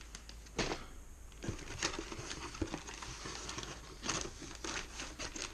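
Plastic packets of soft-plastic fishing worms crinkling and rustling as they are handled, in irregular rustles and small clicks.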